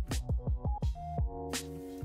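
Background music with an electronic beat: quick repeated drum hits under held chords.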